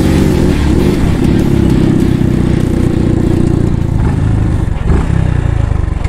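Benelli TNT 300 parallel-twin engine with an aftermarket Akrapovic exhaust running loudly under way, its pitch rising and falling with the throttle, then easing off about four seconds in as the bike slows, with a brief knock near the end.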